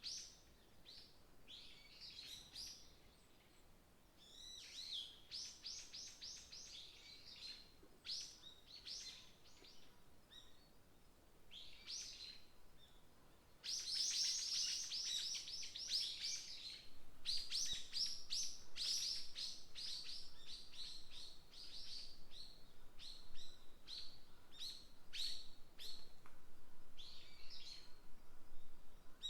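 Small forest songbirds chirping and singing in many short, high, quick notes and trills, sparse at first and growing busier and louder about halfway through.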